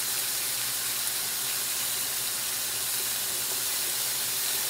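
Food sizzling on an electric grill plate: a steady hiss.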